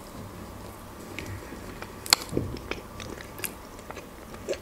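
A person chewing a mouthful of sandwich with the mouth closed: scattered moist mouth clicks, the sharpest about two seconds in.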